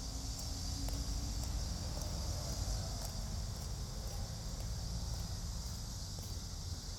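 Cicadas buzzing in a steady high-pitched drone, over a continuous low rumble.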